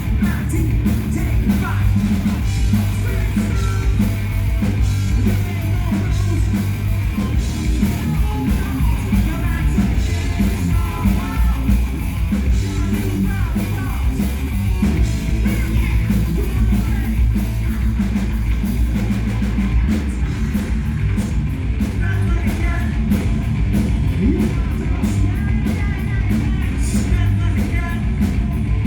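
Hard rock band playing live: distorted electric guitars, bass and drums with a male voice singing over them.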